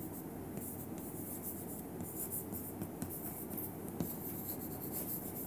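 Chalk writing on a chalkboard: short scratchy strokes and occasional light taps as words are written.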